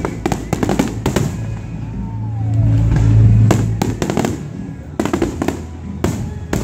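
Aerial firework shells bursting in quick succession: sharp bangs and crackling throughout, with a deep boom swelling about two to three and a half seconds in.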